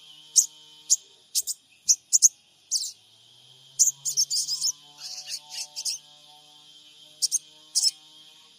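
Sogon, a sunbird, giving quick, sharp, high chirps in irregular clusters of two or three, over a steady high insect-like drone.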